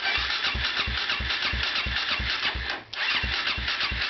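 Kawasaki KFX400's electric starter cranking the single-cylinder engine over in an even beat of about four or five compression strokes a second, without it catching. The cranking stops briefly about three seconds in, then starts again. The engine turns over but won't start with the aftermarket Procom CDI fitted, which the owner blames for the trouble.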